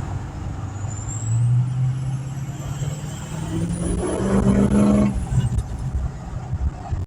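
Ford 6.0 Powerstroke V8 turbo-diesel accelerating, its engine note climbing for about four seconds with a rising high turbo whistle, then easing off about five seconds in.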